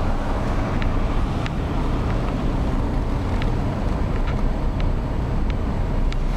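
Steady road and engine noise of a car driving slowly, heard from inside the car, with a few faint, irregular small clicks.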